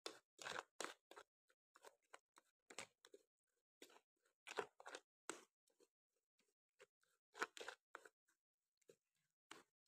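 Plastic spoon scraping and pressing wet guava pulp through a perforated metal strainer: faint, irregular wet scrapes, several a second, loudest at a few firmer strokes about halfway through and again later.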